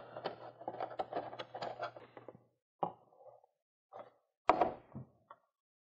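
Small clicks and taps of plastic parts being handled, then a few separate knocks, the loudest about four and a half seconds in, as a black plastic packaging insert tray is handled over a wooden table.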